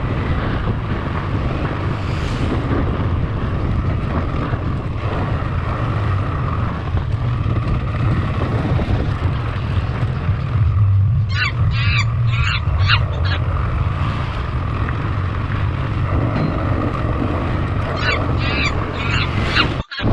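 Motorcycle engine running under heavy wind noise on the microphone. Two short runs of sharp, high calls sound over it, one about halfway through and one near the end, with the sound cutting out for an instant just before the end.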